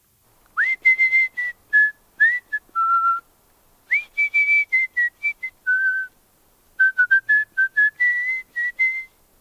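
A person whistling a short tune in clipped notes, some slid into from below, in three phrases with brief pauses between them.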